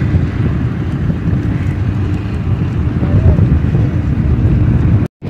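Wind rumbling on the microphone, with a faint steady hum under it for the first half. The sound drops out suddenly for a moment near the end.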